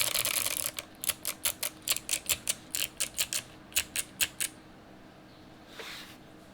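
Custom acrylic-plate KBD6X mechanical keyboard with lubed Kailh Box Jade clicky switches and GMK keycaps being typed on: a fast run of keystrokes for under a second, then slower separate keystrokes that stop about four and a half seconds in.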